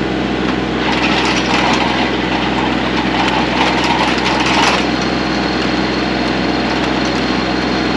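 Tractor engine running steadily, driving a post-hole auger. From about a second in, a gritty scraping rush lasts some four seconds as the auger bores into the soil.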